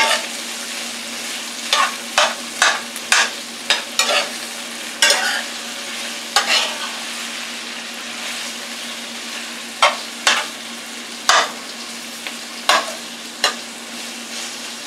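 Sliced onions and peppers sizzling in oil in a frying pan while a metal spoon stirs them, scraping and clicking against the pan a dozen or so times. The clicks come in two bunches, in the first few seconds and again toward the end, with the sizzle going on steadily between.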